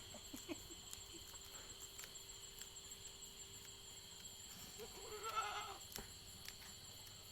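A goat bleats once, a wavering call about five seconds in.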